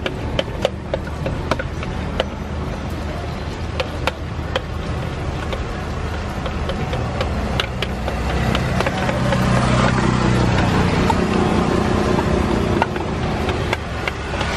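Martabak manis batter sizzling in a thick metal pan, the hiss growing louder from about nine seconds in as the batter starts to bubble. Under it runs a steady low rumble of street traffic, with sharp clicks in the first few seconds as the scoop knocks against the pan.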